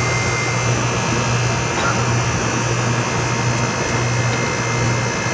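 Floor-mounted 3-ton air-conditioning unit running: a steady airflow rush over a low hum, the hum dropping out briefly twice.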